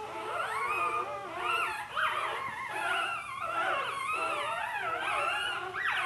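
Several newborn puppies whimpering and crying at once, their high calls overlapping and rising and falling without a pause.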